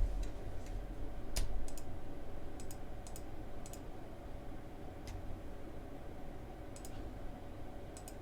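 Computer mouse clicking about ten times at irregular intervals, many clicks a quick double snap, over a steady low hum.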